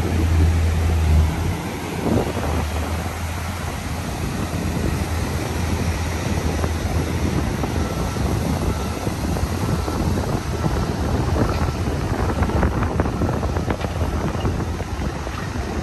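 Wind buffeting the microphone with a steady low rumble, over the hiss of surf. The rumble is strongest in the first second or so.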